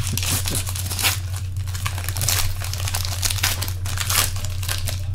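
Trading-card pack wrapper being torn open and crinkled by hand, a run of irregular crackles, over a steady low hum.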